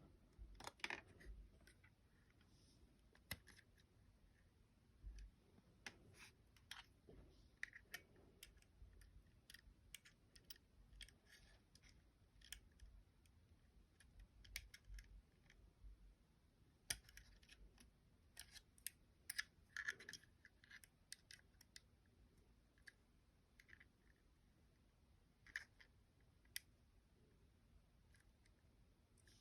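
Irregular small clicks and scrapes of Glock 29 pistol parts being handled during field stripping or reassembly, with quiet gaps between them.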